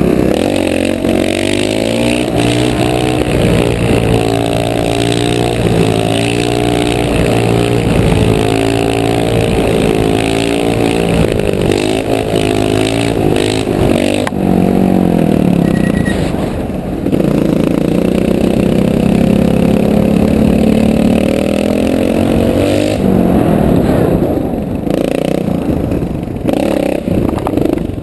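Trial motorcycle engine running under throttle, its pitch rising and falling as the rider opens and closes the throttle, with a long climb in the middle and lower, more uneven running near the end.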